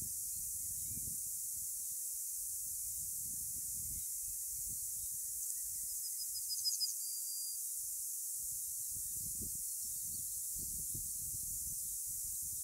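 Meadow ambience: a steady high-pitched hiss with wind rumbling on the microphone in gusts. About six seconds in, a small bird gives a short call of quick high notes.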